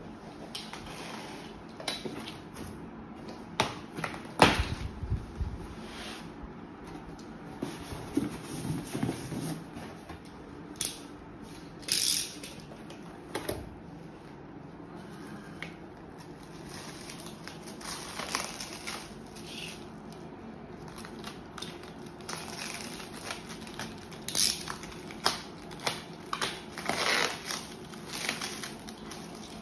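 Unboxing handling noise: cardboard flaps scraping and tapping, and cling-film plastic wrap crinkling as hands move over a wrapped wall panel. A single heavy thump comes about four and a half seconds in, among scattered clicks and rustles.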